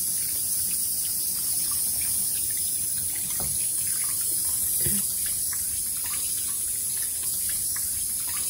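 Water running steadily from a bathroom tap into a sink, with small splashes now and then.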